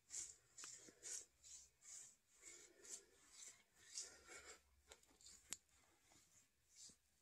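Faint scratchy rubbing of a hand over beard stubble, in short strokes about twice a second, thinning out to a few small ticks, one sharper about five and a half seconds in.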